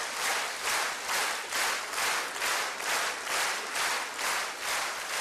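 Large audience applauding, clapping in unison in a steady rhythm of about two to three claps a second.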